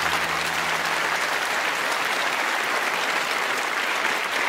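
Audience applauding steadily at the end of a keynote talk.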